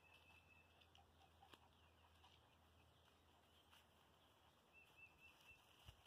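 Near silence: faint outdoor ambience with a few faint, short, high chirps, a quick run of them about five seconds in, and a couple of soft clicks.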